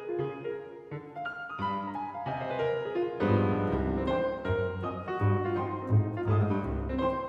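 Classical piano music, with strong low bass notes coming in about three seconds in.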